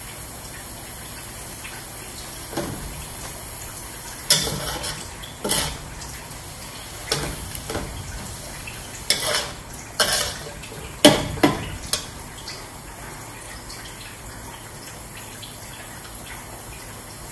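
Metal spatula scraping and knocking against a metal wok while grated coconut is stirred and turned, in about ten irregular strokes. The strokes stop a few seconds before the end, leaving only a faint steady hiss.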